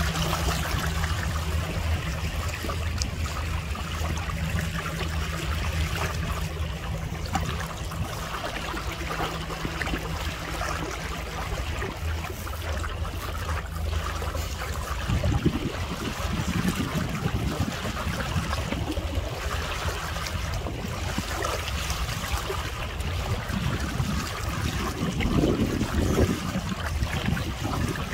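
Sea water rushing and splashing against an inflatable kayak as it moves along. A steady low hum runs for about the first half and then stops, followed by uneven low rumbles.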